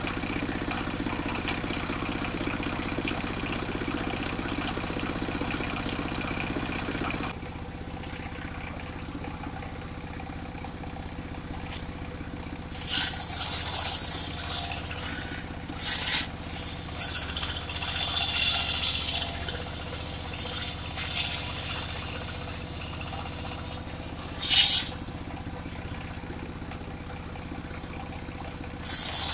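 A machine running steadily, with a hum that drops in level about seven seconds in. Loud hissing bursts of a second or two cut in repeatedly from about thirteen seconds on.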